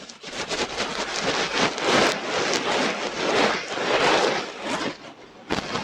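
Close-up scratching and rubbing against an ASMR microphone: a dense crackle of many tiny clicks that swells through the middle and thins near the end, with a few sharp separate clicks at the close.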